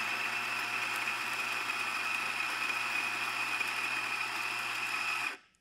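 Eureka Mignon Notte flat-burr espresso grinder running as it grinds coffee beans: a steady motor whine with a high tone over a low hum, fairly quiet and slightly high-pitched. It stops about five seconds in.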